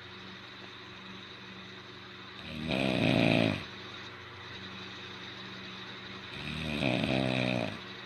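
A sleeping man snoring through his open mouth: two loud, rasping snores about four seconds apart.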